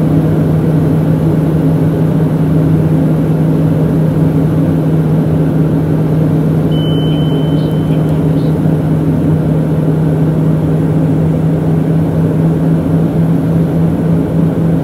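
Steady drone of a turboprop airliner's engines and propellers heard from inside the cabin, with a strong steady low propeller hum, as the plane descends on approach to land.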